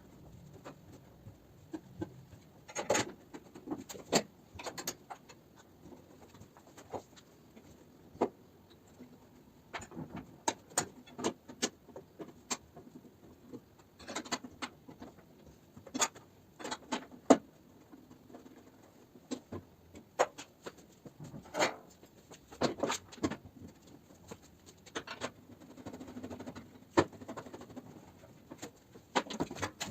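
Irregular light clicks and knocks, a few at a time, with short gaps between them.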